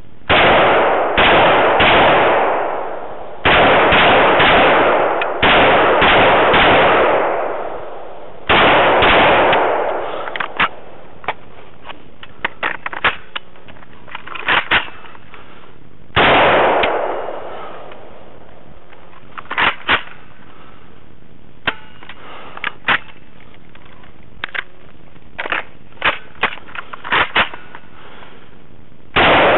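FN FS2000 bullpup rifle firing 5.56 mm rounds: a fast string of about ten shots in the first nine seconds, each with a ringing tail, then single shots at about the middle and near the end. Quieter sharp clicks and knocks fall between the later shots.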